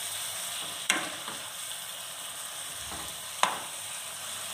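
Mushroom and green chilli fry sizzling in a non-stick pan as a spatula stirs it, with two sharp knocks of the spatula on the pan, about two and a half seconds apart. The masala has cooked down to the stage where the oil separates out.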